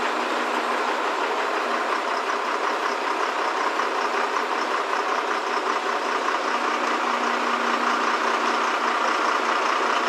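A crane's engine running steadily while the boat hangs in its lifting slings.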